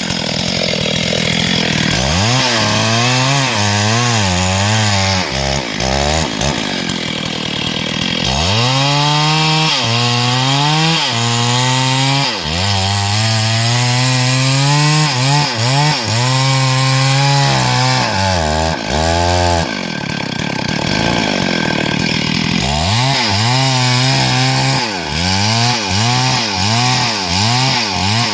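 STIHL MS382 two-stroke chainsaw cutting hardwood, its engine pitch repeatedly sagging and recovering as the chain works through the wood, with a few brief spells where the engine note drops out of the low range.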